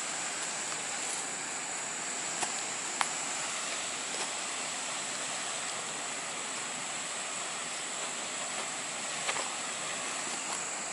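Steady outdoor background hiss with a constant high-pitched whine above it, and a few faint ticks.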